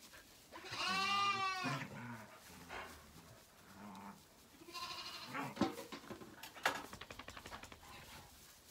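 A lamb bleating: one loud wavering bleat about a second in, then a shorter, fainter one around five seconds, with a couple of sharp knocks in between.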